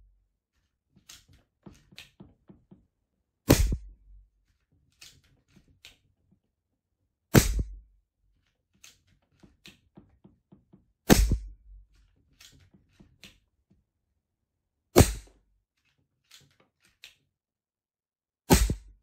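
Hatsan Jet 1 PCP air pistol fired five times, about one shot every four seconds, with quieter clicks between shots. It is an unregulated pistol, and its velocity falls shot by shot as the air pressure drops.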